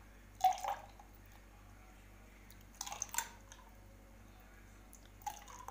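Mango panha poured from a steel bowl into a glass of ice cubes, in three short pours with a splash each time, the first the loudest.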